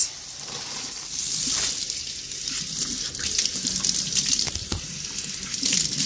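Kitchen tap running, with water splashing over a freshly gutted chicken carcass as it is rinsed, and a few light knocks.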